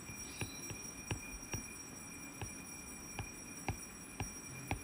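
Stylus tip tapping and clicking on a tablet's glass screen during handwriting: faint, irregular clicks, a few a second, over a low steady hum.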